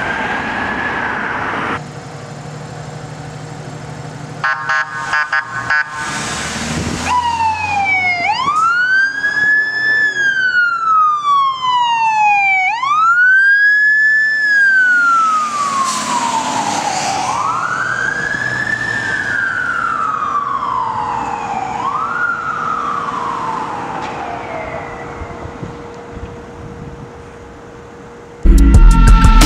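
Fire engine siren wailing: the pitch climbs quickly and then slides slowly down, over and over, about four times. Before it, a few short horn blasts sound; the siren fades away near the end.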